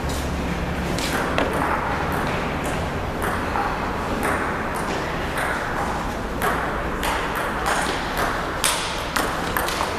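Table tennis balls clicking off rackets and tables, with hits from several tables at once in a large sports hall. The loudest, closest hits come in the last couple of seconds as a rally gets going at the near table.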